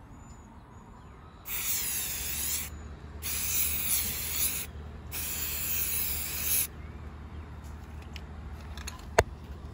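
Rust-Oleum aerosol spray paint can hissing in three separate sprays of a second or so each, paint going on over fern fronds laid on a kayak hull. A single sharp click near the end.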